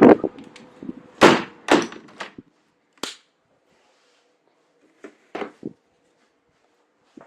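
A string of short, sharp knocks and thumps, the loudest a little over a second in and a small cluster about five seconds in. A faint steady hum runs between them.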